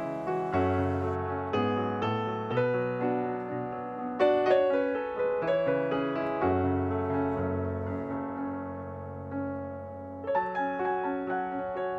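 Background piano music: a gentle melody of struck notes over held low bass notes.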